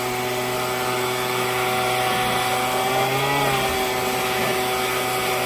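Leaf blower running steadily, blowing leaves out of a house gutter; its pitch swells briefly a little past three seconds in.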